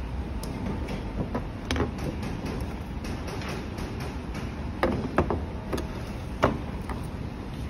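18650 lithium-ion cells and plastic cell holders clacking as they are set in a row by hand: a few sharp clicks, most in a cluster around the middle and one more near the end, over a steady low background hum.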